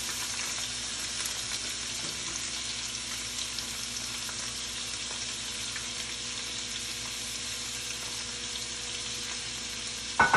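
Chopped vegetables and Italian sausage sizzling steadily in hot oil in a frying pan, just after the vegetables went in. A short, sharp clink near the end.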